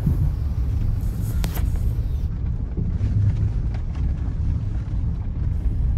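Road noise heard inside the cabin of a Tata Tiago EV: a steady low rumble of tyres and suspension on a rough, unpaved road, with a sharp click about a second and a half in.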